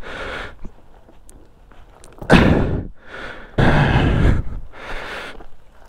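A person straining with three short, heavy, breathy grunts, the first about two seconds in and the others close after it, while forcing a bent motorcycle shift lever back into place by hand.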